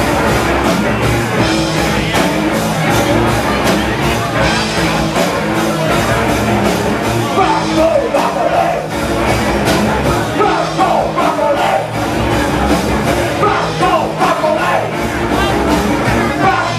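Live rock band playing loudly: drums, amplified cello and guitar. A voice sings over the music in the second half.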